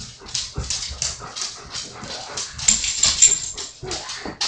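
Pet dog panting quickly, about four breaths a second, with a thin, high squeak lasting about a second near the middle.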